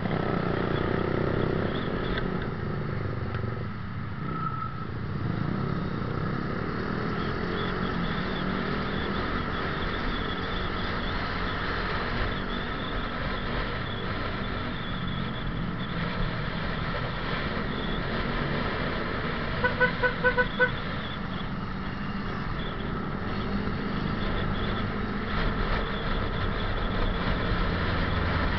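Yamaha Jupiter Z1 single-cylinder motorcycle running at a steady riding pace, with road and wind noise and other motorcycles in traffic around it. About twenty seconds in, a horn gives four quick short toots.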